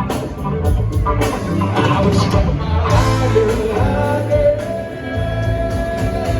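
Live rock band music with guitar, bass and drums, a long note held through the second half.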